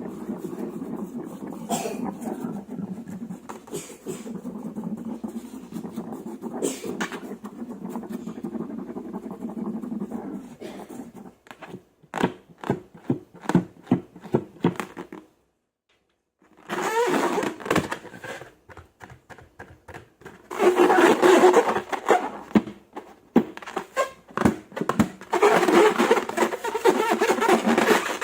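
Slime being squished and stretched by hand: sticky clicking and crackling. It breaks off in a brief silence about halfway through, then comes back denser and louder.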